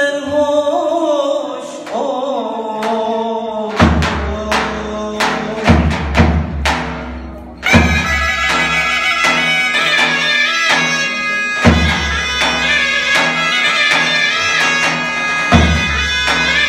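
A solo voice sings a line alone. Then a davul starts beating spaced strokes about four seconds in, and about eight seconds in a lead zurna and a drone zurna come in loudly over the drum, starting a zeybek dance tune.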